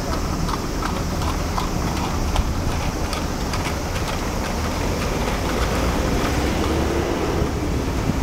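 City street traffic rumble with wind on the microphone, and a run of light, evenly spaced clicks that fades out about two thirds of the way in.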